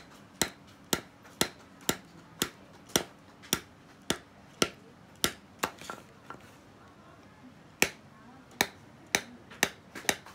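Metal punch being tapped through a leather shadow-puppet sheet on a wooden block: sharp taps about two a second, pausing for a couple of seconds a little past the middle before starting again.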